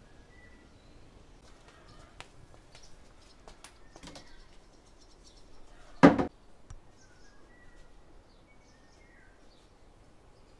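Small birds chirping faintly now and then, over scattered clicks and knocks, with one loud knock about six seconds in.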